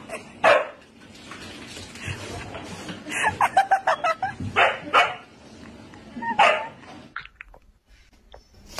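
A husky barking in short separate barks, with a quick run of several barks a little past halfway.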